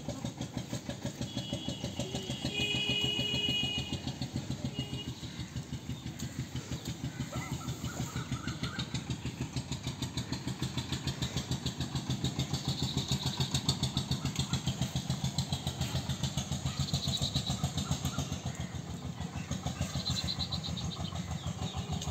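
A small engine running steadily with a rapid, even beat, with a brief high tone about three seconds in.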